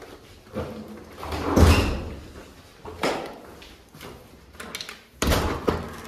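A door being opened and shut, with a series of knocks and thuds; the loudest comes about a second and a half in, and another sharp one near the end.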